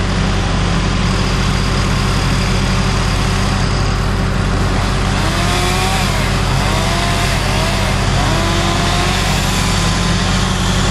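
An engine running steadily at an even idle, with a constant low hum. A few faint rising-and-falling tones come and go in the middle.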